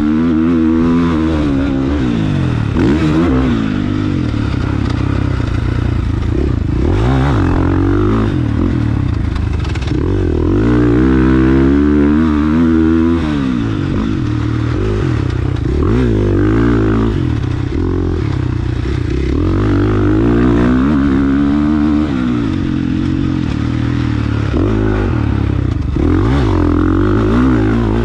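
A KTM 450 four-stroke motocross bike's engine being ridden hard, its revs climbing and dropping again and again as the rider opens and shuts the throttle and changes gear.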